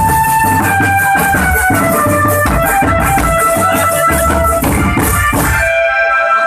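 Indonesian marching drum band playing: bass and snare drums beating a steady rhythm under a rattling shaker-like hiss, with a single melody line of held notes over them. Near the end the drums stop for about a second while the melody carries on.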